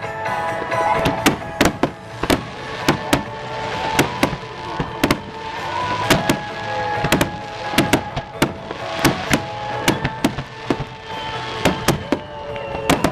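Fireworks bursting in quick, irregular succession, many sharp bangs and cracks, a few with rising or falling whistles, over music playing.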